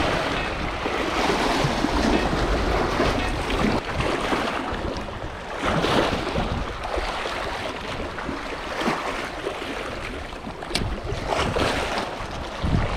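Sea waves washing and splashing against the rocks of a jetty, swelling in surges every few seconds. Wind rumbles on the microphone, mostly in the first few seconds.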